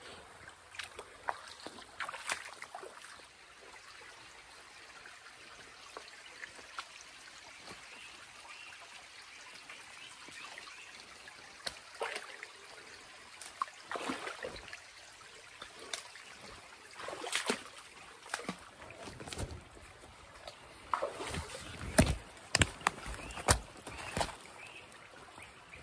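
A creek trickling steadily, with scattered rustles, scrapes and knocks as a hiker clambers over fallen logs and through brush. The knocks come more often in the second half, and the loudest ones are close together near the end.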